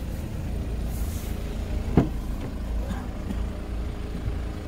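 A Chevrolet Cobalt's rear door being pulled open, with one sharp latch clack about two seconds in, over a steady low rumble.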